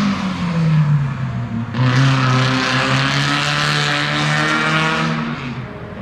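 Rally car engines at speed. The first car's engine note drops in pitch over the first second and a half. A little under two seconds in, another engine comes in abruptly, holding a steady note with a broad hiss, and it fades near the end.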